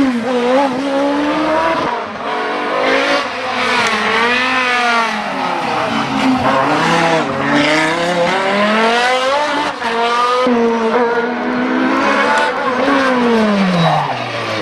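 Race car engine at high revs during a hillclimb run. The revs repeatedly climb and then drop back through gear changes and lifts off the throttle.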